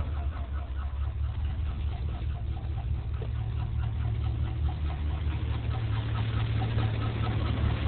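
GM 5.3 L Vortec V8 idling steadily, with a faint regular ticking about three times a second over the low engine hum.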